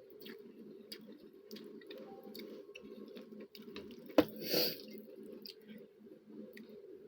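Close-up eating sounds: faint chewing and small scattered clicks over a steady low background hum. About four seconds in there is a sharp click followed by a short breathy, hissing burst.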